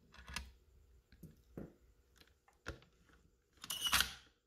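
Light metal clicks and taps from an M1 Garand's bolt as the extractor and ejector are worked into place with the M10 combination tool. Near the end comes a longer, louder metallic slide and clack with a slight ring as the bolt goes home.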